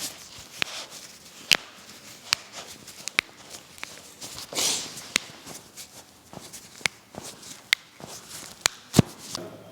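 Scattered sharp clicks and knocks, about a dozen at uneven intervals, the loudest near the end, with a brief rustle about halfway through.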